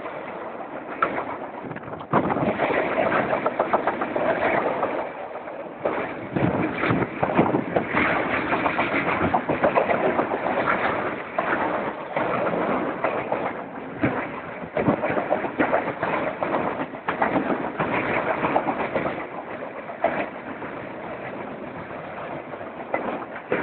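CSX freight train rolling past, its wheels clattering and knocking over the rails amid a fluctuating rumble.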